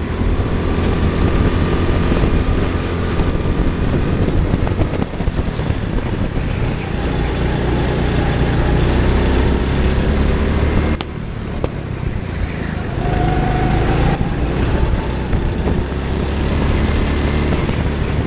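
Go-kart engine running at speed, heard from onboard, its pitch shifting up and down as the kart speeds up and slows. It breaks off sharply about eleven seconds in and goes on a little quieter.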